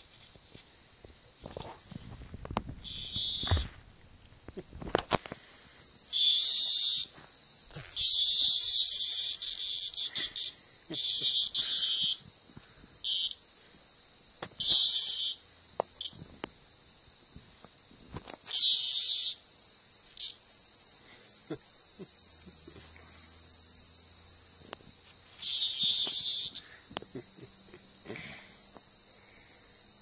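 Cicada giving short, loud buzzing distress squawks, about eight bursts each from a fraction of a second to about two seconds long, the alarm call of a cicada being batted and handled by a cat. Underneath runs a steady high chirring of night insects.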